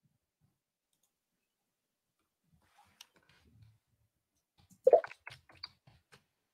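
Silence at first, then from about three seconds in, a scattering of small clicks and soft knocks picked up by a computer microphone, the loudest about five seconds in.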